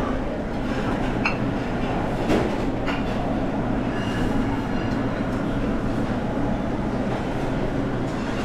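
Busy buffet dining-room din: a steady rumble of crowd noise and ventilation, with a few short clinks of dishes or utensils.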